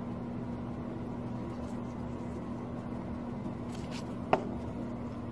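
Steady low electrical hum, with a few faint ticks and one sharp clink about four seconds in as gloved hands handle a small glass jar of tinted lacquer and its bottles.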